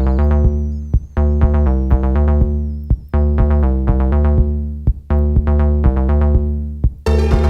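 Electronic music: held synthesizer chords over a heavy bass line, chopped into pulses by a drum-machine beat, with a brighter, noisier hit near the end.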